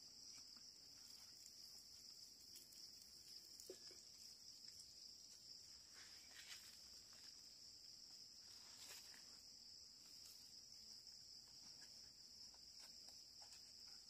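Faint, steady high-pitched shrilling of insects, with a few soft knocks now and then.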